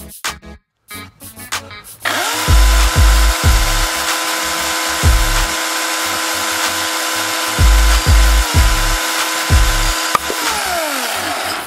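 Ryobi brushless electric chainsaw spinning up about two seconds in and running at a steady whine, then winding down near the end with its pitch falling. A music beat with low thumps plays underneath.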